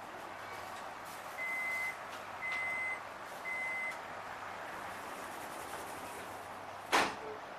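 Inside a Melbourne Metro suburban train: three short high beeps about a second apart, the train's door-closing warning tone, over the steady hum of the carriage, then a single sharp knock near the end.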